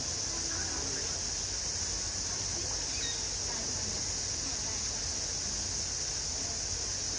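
Steady, high-pitched drone of summer cicadas, unbroken throughout, with faint voices murmuring in the background.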